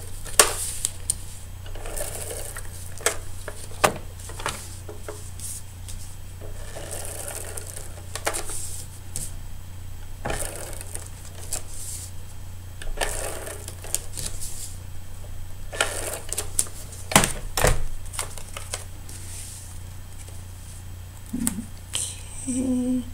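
Handheld tape runner laying adhesive onto cardstock in repeated short scratchy strokes with clicks, mixed with the rustle and tap of cardstock being handled.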